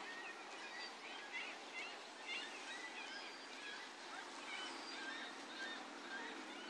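Small birds chirping in short, scattered calls over a steady outdoor hiss, with a faint low hum coming in about halfway through.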